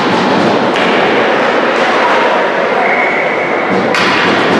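Steady, loud ice-arena ambience during a hockey game, a dense wash of crowd and rink noise with faint voices; its tone changes abruptly twice, about a second in and near the end.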